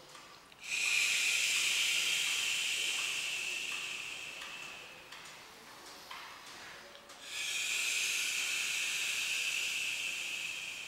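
Two long hissing out-breaths, each about four seconds, starting sharply and slowly trailing off: controlled exhalations that go with pressure on the abdomen during a chi massage.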